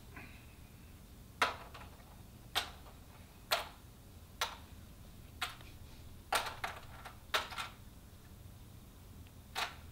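Shards of broken glass dropped by hand into a plastic dustpan, clinking about ten times at irregular intervals.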